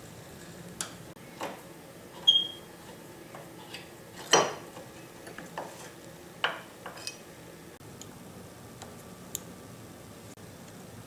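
Hand tools clinking and knocking against metal parts of a Yates American B244 planer's drive train as it is taken apart: a dozen or so irregular metallic clicks and taps, with a short ringing ping about two seconds in and the loudest knock about four seconds in, thinning to faint ticks near the end.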